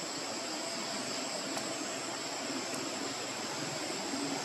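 Steady outdoor background noise with a constant high-pitched insect drone over an even hiss.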